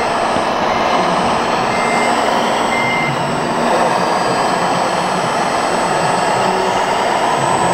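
Steady, dense din of a busy exhibition hall with radio-controlled model machines working. Three short high electronic beeps come about a second apart in the first few seconds, typical of a model's reversing alarm.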